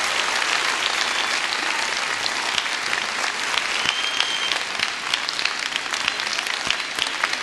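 A large audience applauding steadily, many hands clapping at once, with a brief high whistle about four seconds in.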